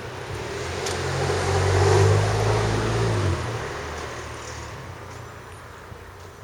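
A Randen (Keifuku Electric Railroad) tram passing close by: its motor hum and running noise build to a peak about two seconds in, the hum stops sharply a second later, and the sound fades away.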